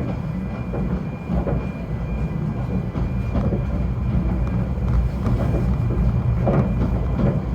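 Snowdon Mountain Railway rack train running, a steady low rumble with a faint thin whine above it.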